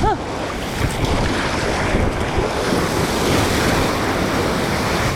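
Wind buffeting a live microphone over the steady wash of surf and water around a paddleboard. Right at the start there is one short squeaky tone that rises and falls.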